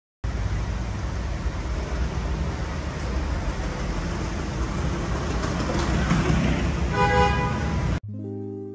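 Street ambience with steady traffic noise and a short car horn toot about seven seconds in. The street sound cuts off abruptly about eight seconds in, and soft piano music begins.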